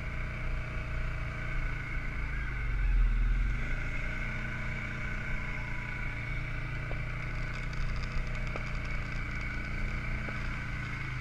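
ATV (quad) engine running at a steady throttle while riding, with a brief swell in the low rumble about three seconds in.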